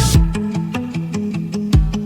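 Background music: an upbeat track with a short-note melody over a steady beat, a kick drum thumping about every 1.6 seconds.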